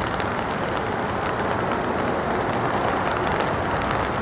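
Boeing 777 jetliner on final approach, its engines a steady rushing noise that grows slightly louder as it comes closer, with rain pattering.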